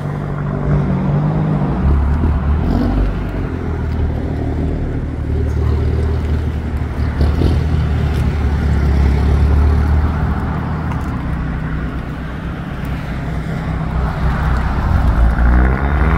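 Hyundai N cars' exhausts as the cars pull out, a deep, steady exhaust drone from a car close by. Near the end an engine revs up, rising in pitch.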